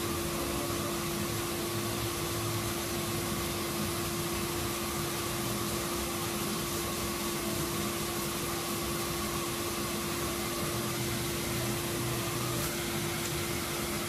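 Steady hiss and hum of a running workshop air machine, with one constant low-mid tone and no breaks.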